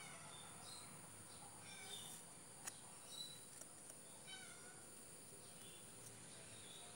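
Near silence: a faint background with a steady high-pitched drone and scattered short, faint chirps, and one light click about two and a half seconds in.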